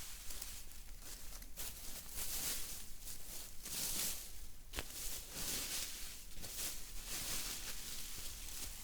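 Dry leaf litter and forest debris rustling and crackling in repeated swells as it is scooped up and handled, with a couple of sharp twig snaps.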